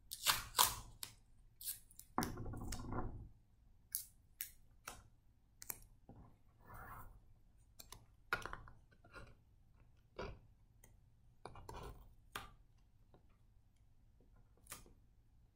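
Masking tape pulled off the roll with a rip about two seconds in, then scattered short clicks and rustles of tape, paper and a plastic straw being handled and pressed together.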